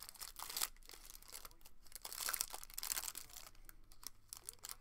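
Plastic wrapping of a trading card pack crinkling and tearing as hands peel it open, in irregular rustles.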